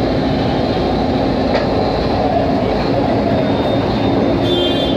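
Backhoe loader's diesel engine running steadily close by as the machine works its arm, with a low rumble throughout.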